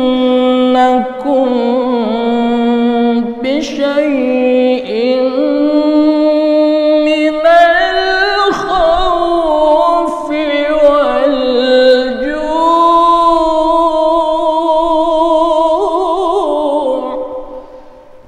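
A man reciting the Quran in the melodic tilawah style into a microphone: long held, ornamented notes with fast trills. The melody climbs higher about midway, and the phrase falls away and stops shortly before the end.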